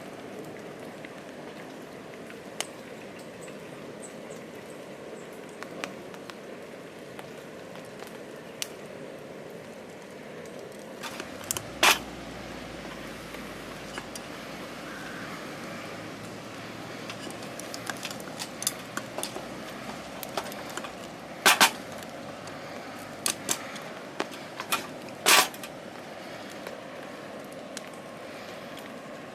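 Steady hiss of rain, broken by scattered sharp clicks and several loud short knocks and clacks, the loudest about twelve seconds in, and a pair a little past twenty seconds.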